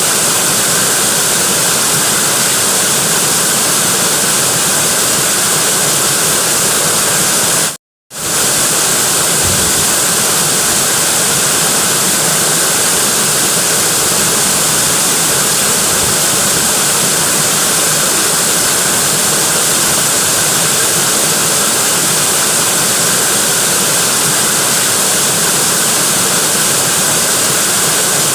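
Natural waterfall: water falling with a loud, steady rushing, cut to silence for a moment about eight seconds in.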